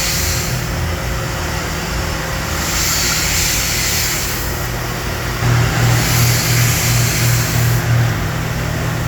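Dairy milking pipeline system running its rinse cycle: a steady machine hum with hissing surges of water and air every couple of seconds. In the second half a rhythmic low pulsing comes in, about three beats a second.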